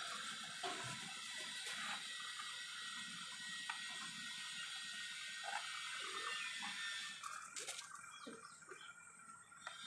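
Kitchen knife cutting through a block of paneer on an aluminium plate: faint soft scrapes and light taps of the blade on the metal over a steady background hiss, with a few sharp clicks about seven and a half seconds in.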